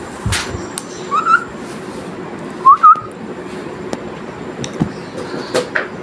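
Pet cockatiel giving two short whistles about a second and a half apart, each rising then wavering; the second is louder.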